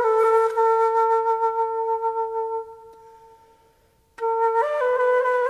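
Solo flute music: a long held note that fades away to near silence, then a new phrase starts suddenly after a short gap.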